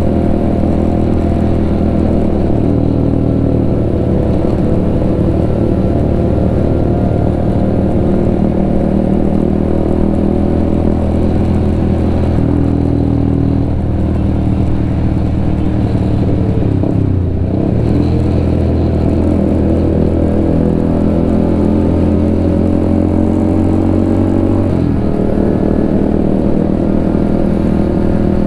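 Honda CBR150R's single-cylinder engine running while cruising, heard from the rider's seat over a steady rush of wind. The engine pitch shifts a few times as the throttle changes.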